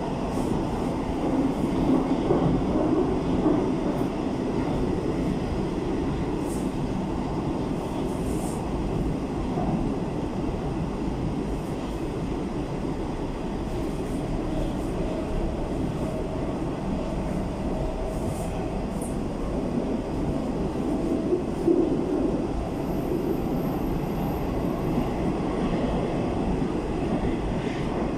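Moscow Metro 81-760/761 train running at speed between stations, heard from inside the passenger car: a steady rumble of wheels and running gear, with a few faint clicks.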